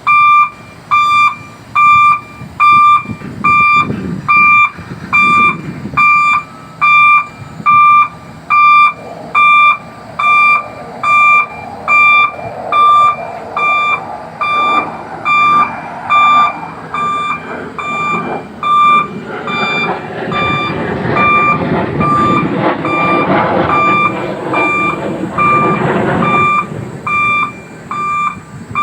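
Kato 25-ton rough-terrain crane's warning beeper sounding a steady single-pitch beep about three times every two seconds, over the crane's running engine, which grows louder about a third of the way in and is strongest in the latter part as the machine works.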